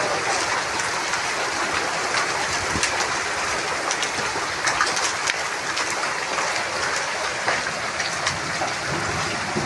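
Heavy hailstorm downpour: a steady hiss of rain with many sharp, scattered ticks of hailstones striking hard surfaces.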